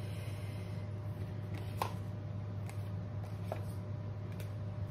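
Tarot cards being handled and drawn from the deck: four faint light clicks a little under a second apart, over a steady low hum.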